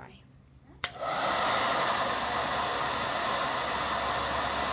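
Hand-held hair dryer switched on with a click about a second in, then blowing steadily.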